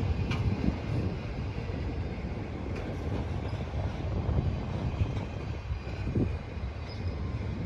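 Freight cars of a passing train rolling by: a steady low rumble of wheels on rail with a few clunks, and a faint high wheel squeal.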